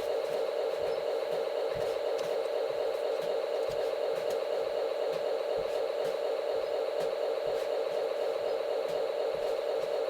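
Model-train sound module's diesel locomotive engine effect running steadily at a constant pitch, with faint low thumps now and then.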